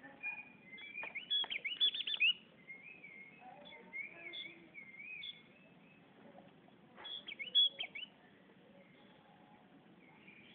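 Javan grey-throated white-eye (opior jawa) singing: a burst of quick, sharp chirps about a second in, then a run of wavering whistled notes, and another burst of chirps about seven seconds in.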